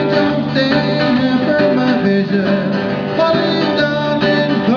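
Live band playing the instrumental introduction to a Hawaiian song, with strummed acoustic string instruments carrying the melody and chords before the vocals come in.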